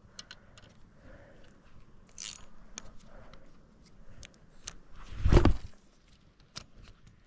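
Scattered small clicks and scrapes of fishing tackle being handled while a curly-tail lure is retrieved, with one loud thump about five seconds in.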